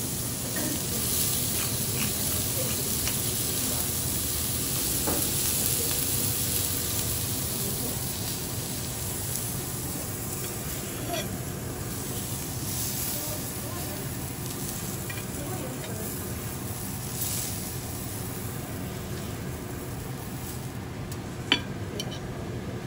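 Cubes of Olive Wagyu fillet sizzling on a hot steel teppanyaki griddle, the hiss loudest over the first several seconds and then thinning. Scattered small clicks run through it, with one sharp click near the end.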